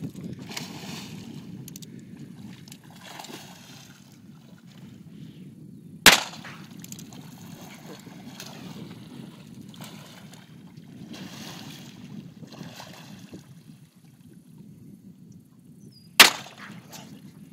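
Two handgun shots, about ten seconds apart: one about six seconds in and one near the end, each a sharp crack with a short ringing tail. A steady low rumble runs underneath.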